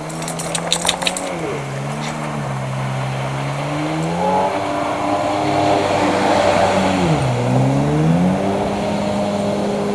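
Jet ski engine running with its pitch dropping and climbing twice as the throttle is eased off and opened again, over a hiss that grows louder in the middle. A few sharp clicks about a second in.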